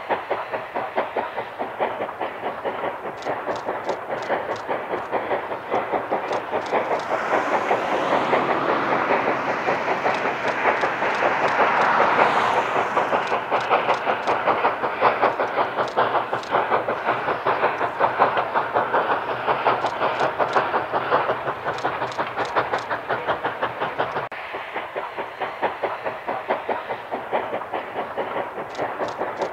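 East Broad Top #16, a narrow-gauge steam locomotive, working a passenger train with a fast, even rhythmic beat. It grows louder through the middle and eases off near the end.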